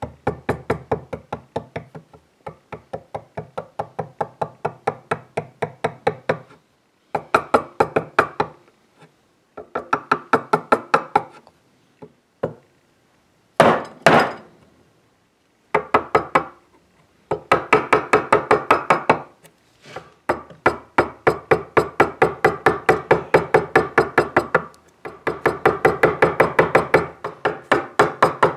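A steel chisel being tapped with a mallet to chop out a recess in an oak tabletop for a wood patch. The light taps come quickly, about five a second, in runs of a few seconds with short pauses. There is one brief, louder noisy sound about halfway through.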